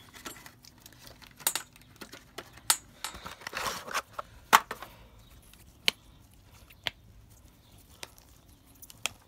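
Scattered sharp clicks and knocks of hand-handling of tools and the pressure washer's plastic parts, about eight in all, the loudest about four and a half seconds in, with a short rustling rasp just before it.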